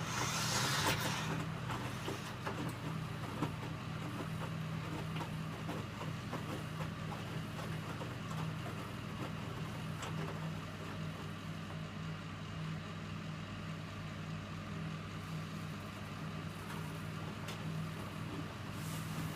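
Electrolux W455H commercial washing machine running, a steady low motor-and-drum hum with a brief burst of hiss near the start.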